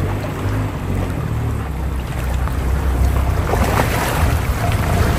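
Rushing river water with wind rumbling on the microphone, growing louder with a splashy crackle from about three seconds in.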